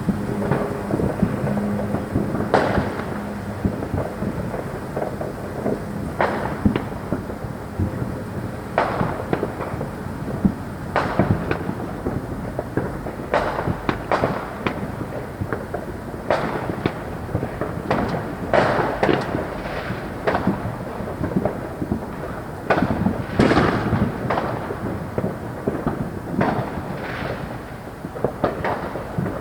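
Fireworks going off in a continual barrage: sharp bangs at irregular intervals of a second or two, several echoing, over a steady low rumble of more distant explosions, with a dense, louder cluster about two-thirds of the way through.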